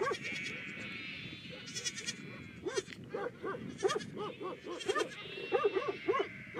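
A flock of sheep bleating, many calls overlapping, some short and low and others high and quavering.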